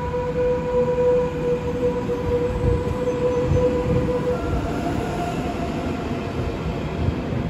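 Electric intercity train moving slowly past along the platform: a steady whine over a low running rumble. About halfway through, the whine steps up to a higher pitch.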